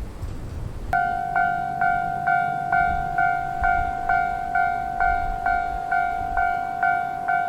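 Japanese railway level-crossing warning bell starts about a second in and rings on steadily, a two-tone electronic ding repeating about twice a second, the signal that a train is approaching. Wind noise on the microphone underneath.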